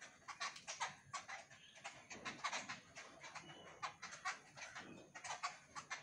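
A flock of babblers calling together: a rapid, overlapping run of short, harsh, squeaky calls from several birds at once.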